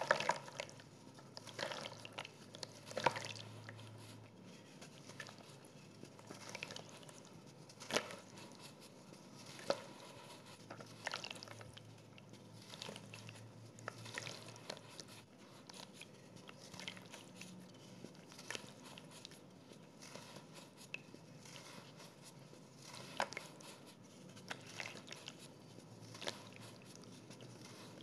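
Soft grey charcoal block crumbled by hand over a plastic tub of water: irregular gritty crunching with a few sharper cracks as pieces break off, and crumbs and powder falling into the water.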